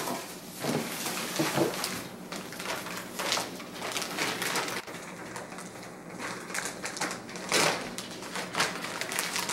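A clear plastic bag holding paper manuals crinkling and rustling as it is lifted and handled, with irregular crackles all through.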